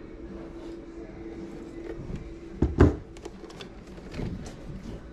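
Plastic-cased Library of Congress cassette player being handled and turned over: scattered clicks and knocks, with one loud thump nearly three seconds in. A steady low hum sounds under the first half and stops about two and a half seconds in.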